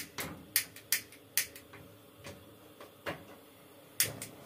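Gas stove's spark igniter clicking as a burner is lit: a run of sharp clicks at uneven spacing, the loudest at the start and about four seconds in.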